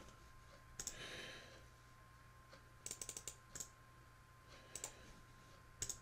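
Faint, scattered clicks of a computer keyboard: a quick run of keystrokes about three seconds in and single presses elsewhere, over a faint steady thin tone.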